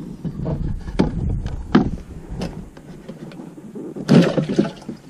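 A few separate wooden-sounding knocks, then a louder quick cluster of knocks and clatter near the end.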